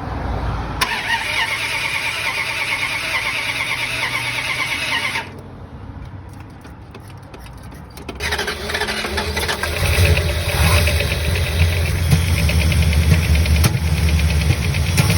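Car engine cranked on the starter with a whine for about four seconds without catching. After a short pause it is cranked again, catches and settles into running with a heavy low rumble. It is misfiring heavily because the distributor cap has come loose.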